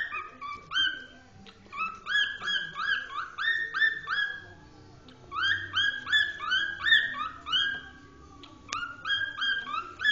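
A cockatiel whistling at a sock: a string of short rising-and-falling whistled notes, about three a second, sung in four bursts with brief pauses between them.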